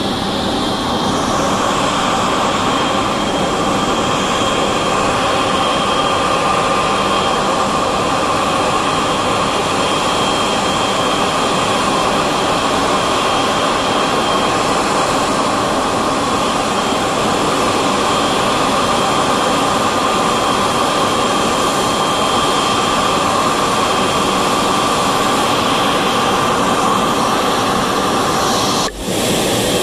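Boeing 777-200LR's two GE90 turbofan engines running at taxi power as the airliner taxis in: a steady jet whine with two high held tones over a broad rush. The sound breaks briefly near the end.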